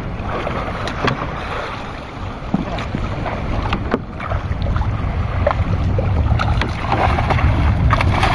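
Wind buffeting the microphone and sea water washing against a wooden outrigger boat, with scattered sharp knocks and clicks. The water sound grows louder over the second half as a hooked fish thrashes and splashes at the surface beside the outrigger.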